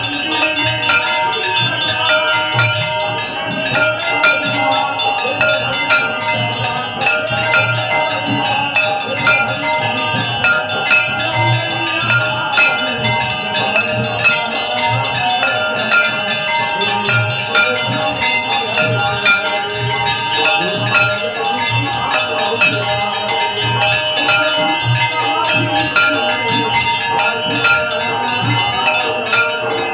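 Temple bells ringing continuously over devotional music with a steady low beat, the sound of an aarti in progress.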